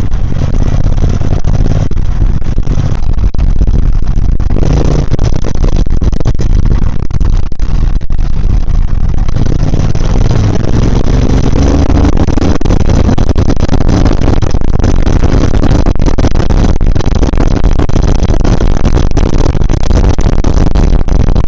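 Triumph Speed Twin 1200's parallel-twin engine and exhaust running on the move under heavy, loud wind rush on the microphone. The engine pitch rises partway through as the bike accelerates.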